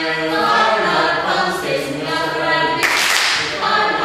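A small group of men and women singing an action song together, unaccompanied, with a short burst of hand clapping nearly three seconds in.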